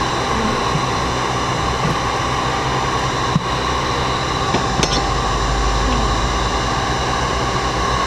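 Bee vacuum running steadily, a constant motor hum and air rushing through the hose, with a couple of light knocks partway through.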